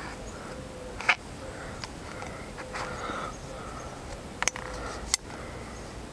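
Nitrile-gloved hands handling a plastic oil filter housing while fitting a new seal onto it: soft rubbing and scraping, with a few sharp clicks about a second in and twice between four and a half and five seconds in.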